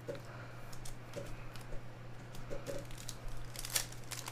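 Foil trading-card pack wrapper handled and torn open: scattered light clicks and rustles, then crinkling that builds near the end. A steady low electrical hum runs underneath.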